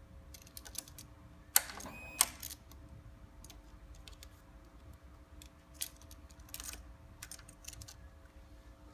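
A scattered series of light clicks and knocks, the two loudest about a second and a half and two seconds in, with a brief high tone between them, over a faint steady hum.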